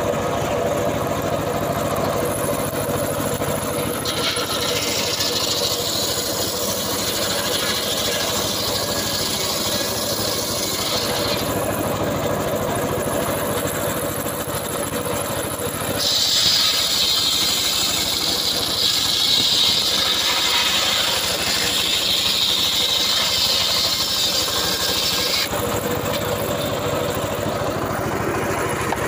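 Homemade circular sawbench running steadily on its drive engine while the large blade rips a wooden plank lengthwise. Two long cuts add a loud, high hissing cutting noise, the first starting a few seconds in and the second just past the middle.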